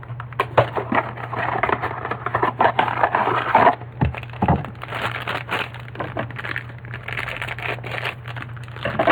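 A Funko Mystery Minis blind box being opened by hand: cardboard and packaging crinkling and crackling with many small clicks, continuing without a break.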